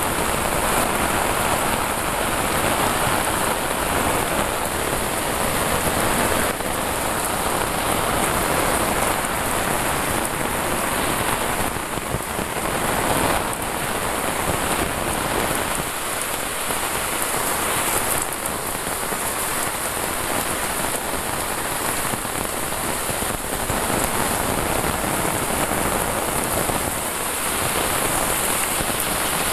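Heavy rain falling steadily, heard from under an umbrella.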